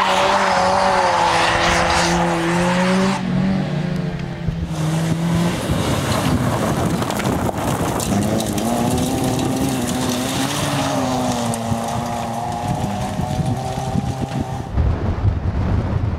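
Nissan Micra rally car engines revving hard through corners, the pitch rising and falling with throttle and gear changes, in several short passes that cut abruptly from one to the next. Near the end, wind buffets the microphone.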